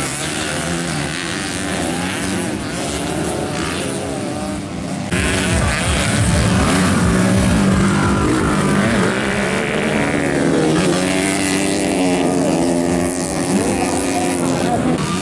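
Several motocross dirt bike engines racing on a dirt track, their pitch rising and falling as the riders rev and shift. The sound jumps louder about five seconds in.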